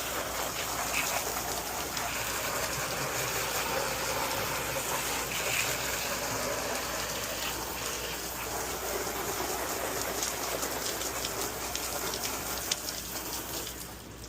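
Hand pump sprayer spraying a soft-wash solution of pool chlorine onto a garage door: a steady hiss of spray that dies away near the end.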